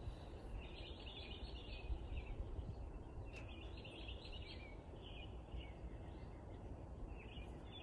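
Small birds chirping in short intermittent bursts over a steady low background rumble, with a single faint click about three and a half seconds in.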